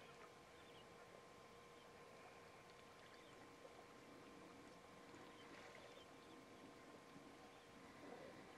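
Near silence: faint outdoor background hiss with a steady low hum.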